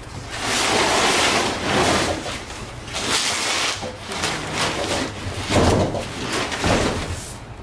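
Boxed refrigerator being pushed and slid across a concrete floor: cardboard scraping and rubbing on concrete in several surges, with handling bumps. The loudest surge comes about five and a half seconds in.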